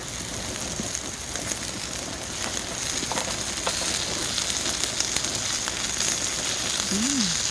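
Steady crackling and sizzling hiss of food cooking over a wood fire, growing a little louder after a few seconds.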